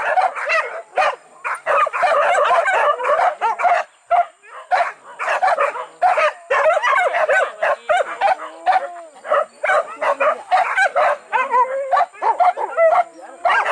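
A pack of hunting dogs barking and yelping without pause, many voices overlapping, baying at quarry hidden in the undergrowth. There is a brief lull about four seconds in.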